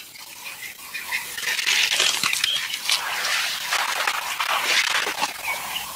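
African elephant feeding on water lily stalks: a dense crunching and rustling of wet plants, with a couple of short high chirps.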